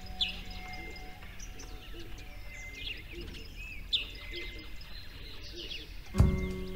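Small birds chirping in short, scattered calls over a faint steady hum. Music comes in loudly near the end.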